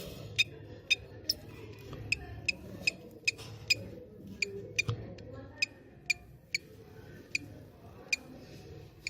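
Budgie chick giving short, sharp peeps, about two a second at first and then at uneven gaps.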